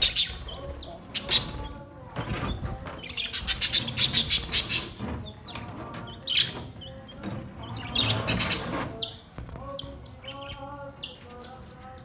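A flock of budgerigars chirping and chattering, with dense bursts of rapid calls twice in the middle and lighter, sharp short chirps near the end. Wings flap now and then as birds fly about.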